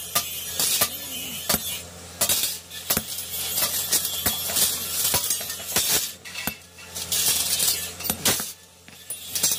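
Hand tool scraping along a small steel nail-cutter blank on a steel anvil in repeated short strokes, with light metallic clinks and taps.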